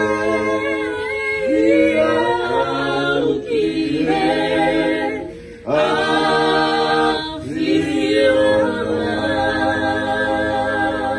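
Small mixed group of men and women singing a hymn a cappella in harmony, holding long notes. The singing breaks for a breath about five and a half seconds in, then comes back.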